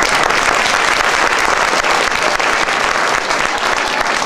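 Audience and choir children applauding: steady, loud clapping from many hands.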